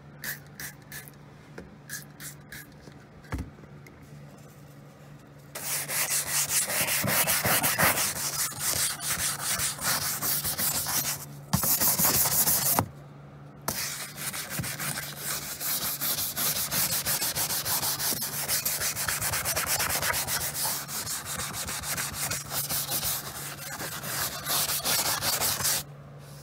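A few short squirts from a trigger spray bottle, then rapid, hard back-and-forth scrubbing of a cleaner-foamed car door sill to lift old grime. The scrubbing starts about five seconds in and has a brief pause about halfway through.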